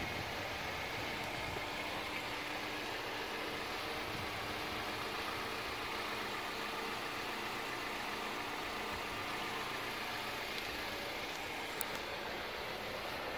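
The Toyota Corolla's 1.8-litre four-cylinder engine idling steadily, heard from outside the car, with a single short click near the end.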